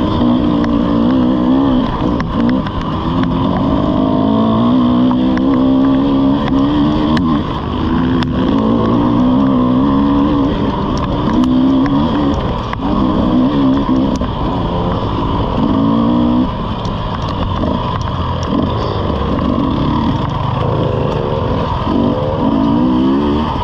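Dirt bike engine heard close up from the bike itself while riding a rough trail, its note rising and falling with the throttle and dropping away briefly several times. Scattered sharp clicks and knocks run through it.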